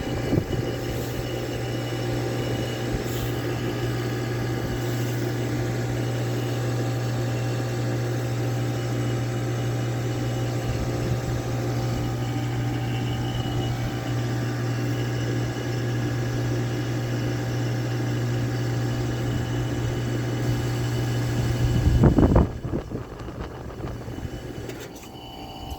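2024 SureComfort SP14 3-ton heat pump running through its defrost cycle with a steady low compressor hum. About 22 seconds in, a loud refrigerant whoosh comes as the hum cuts off, typical of the reversing valve shifting at a change of defrost mode.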